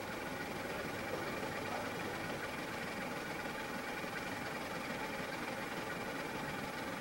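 Steady engine hum and rush of a ship under way at sea, unchanging throughout.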